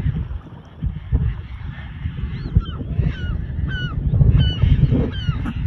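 A large flock of gulls calling as it flies up, short down-slurred cries coming thick and overlapping from about halfway in, over a low rumble of wind on the microphone.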